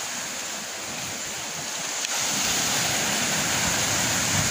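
Steady rush of sea surf and wind. About two seconds in there is a click, after which wind rumbles on the microphone and the sound grows louder.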